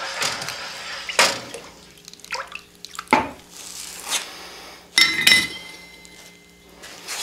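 Hand hammer striking a steel drift to open the eye of a forged hammer head: irregular sharp metallic blows, the loudest pair about five seconds in, leaving a brief ringing tone.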